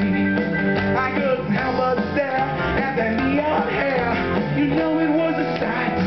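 Pre-recorded rock-and-roll backing music with guitar, played over a stage PA.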